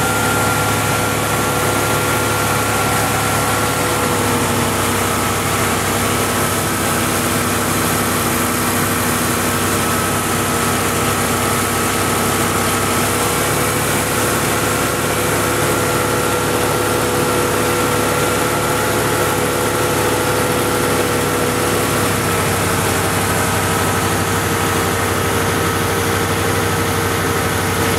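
Ford 5.0 (302) V8 running at a raised idle during the EEC-IV cylinder balance test, with its fuel injectors cut one at a time. The exhaust note is uneven with one cylinder dead, what a misfire sounds like. The note shifts slightly a few times as the test moves from one injector to the next.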